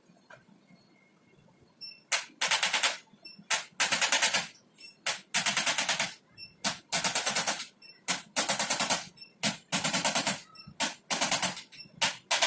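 Handheld electric percussion device used on the body, rattling in rapid repeated taps. It is switched on in bursts of under a second from about two seconds in, each long burst led by a short one, about eight times over.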